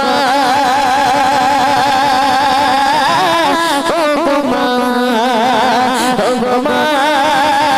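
A young woman singing a Bengali gojol (Islamic devotional song) into a microphone, holding long notes with a strong wavering vibrato and ornamented melodic turns.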